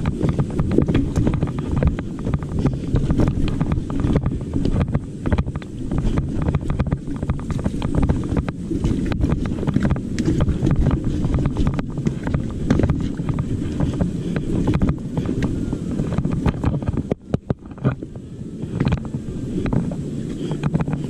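Wind buffeting the microphone while a mountain bike rides over a rough dirt trail, with frequent knocks and rattles. The noise eases briefly about seventeen seconds in.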